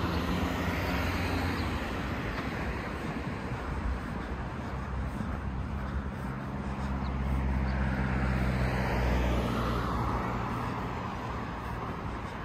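Street traffic: road noise with a motor vehicle's engine running close by, growing louder through the middle and fading near the end.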